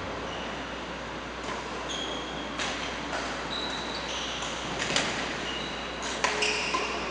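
Badminton rally: rackets striking the shuttlecock several times, the sharpest hits about five and six seconds in, with short high-pitched squeaks of sneakers on the court floor in between.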